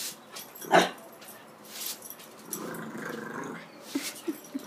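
French bulldog puppy playing at a broom: one sharp bark about a second in, then a drawn-out growl through the middle. Broom bristles swish across the concrete floor in short strokes.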